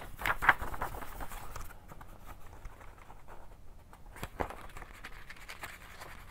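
Paper pages of a book being handled and leafed through: a crisp rustle of paper in the first couple of seconds, then a single sharp tap a little after four seconds in.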